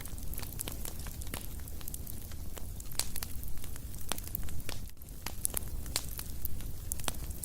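Fire crackling: irregular sharp pops and snaps over a low steady rumble.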